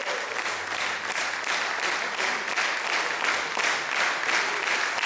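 Audience applauding steadily: a dense wash of many hands clapping.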